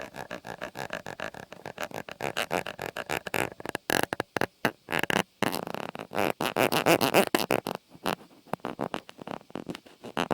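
Close-miked ASMR trigger sounds: a fast, dense train of small taps and clicks, several per second, swelling in the middle and stopping near the end.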